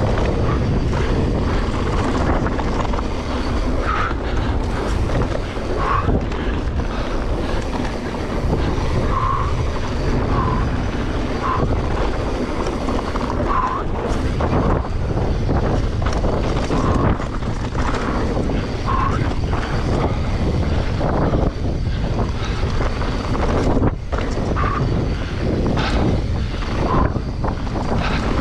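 Mountain bike riding fast over a dry dirt trail: steady wind buffeting on the camera's microphone with tyres rolling over the dirt, and frequent short rattles and knocks as the bike goes over bumps.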